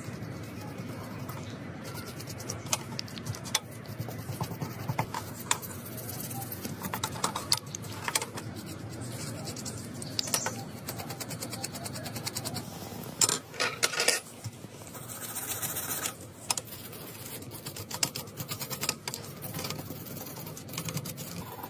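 Small metal hand tools scratching, scraping and clicking against a wristwatch and its small parts, with a cluster of louder clicks about two-thirds of the way through.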